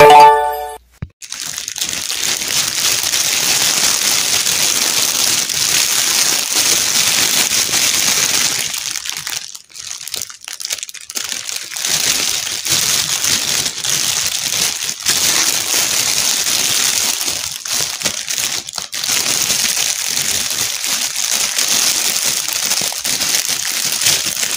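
Clear plastic bag crinkling as hands rummage through it and handle the dolls inside, loud and near-continuous, with a quieter, patchier stretch around the middle. A short musical jingle cuts off in the first second.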